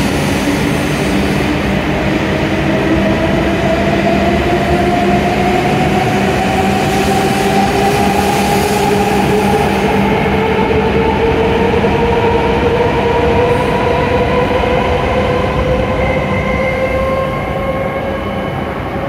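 W7 series Shinkansen pulling out and accelerating, its traction motors whining in two tones that rise steadily in pitch over the rumble of the cars rolling past. The sound eases a little near the end as the last car clears.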